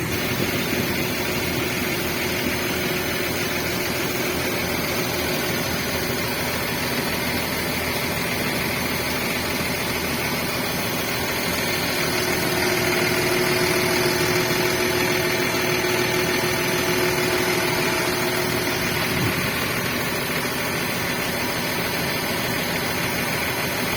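An engine idling steadily, typical of the heavy machine being serviced. It gets a little louder around the middle, then settles back.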